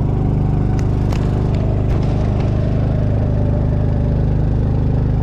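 Motorcycle engine running steadily at an even pitch. There are a few light clicks in the first two seconds.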